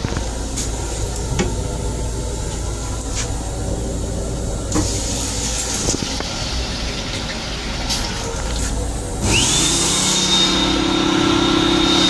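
Sink faucet in an M7 railcar restroom running with a splashing hiss, then the hand dryer above the sink spinning up to a steady high whine with rushing air for about three seconds and winding down near the end, all over the train's steady low rumble.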